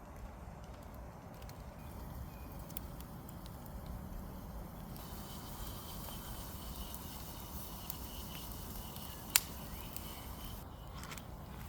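Small wood fire in a bush box stove crackling over a steady low rumble, with scattered light ticks and one sharp pop about nine seconds in. A faint, thin, steady high whine runs through the second half.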